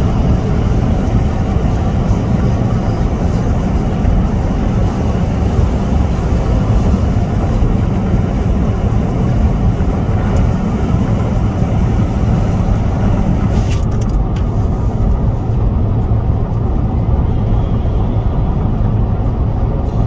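A car driving along a highway: steady road and tyre noise with a low engine rumble. The higher hiss thins out about fourteen seconds in.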